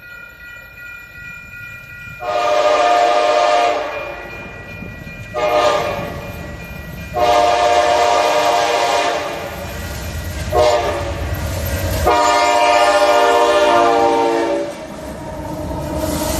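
Multi-chime locomotive air horn sounding five blasts, long and short in turn, each a chord of several steady notes. A low rumble of the train runs underneath, and another blast begins at the end.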